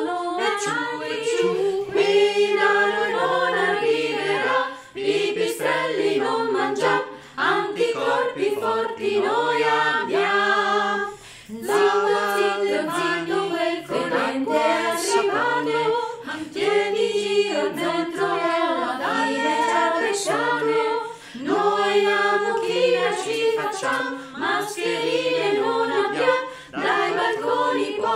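Small mixed a cappella vocal group singing a comic song in Italian, with several voices layered in harmony over a lower backing line. Near the start the backing voices sing the sneeze syllables "etciù etciù".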